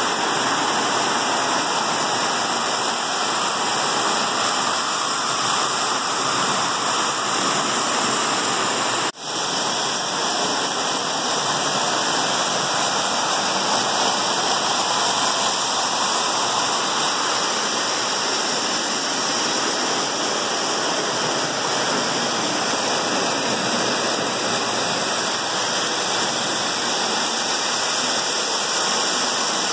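Several Lionel O-gauge toy trains running at once on tinplate track: a steady, even rushing rumble of their motors and steel wheels. There is a momentary dropout about nine seconds in.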